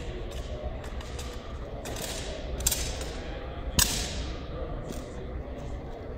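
Wooden-stocked drill rifles being handled in a silent drill routine: a run of slaps and clacks on the rifles, with two sharp, loud cracks about two and a half and four seconds in. Each crack echoes around a large gym hall, over a steady low hum.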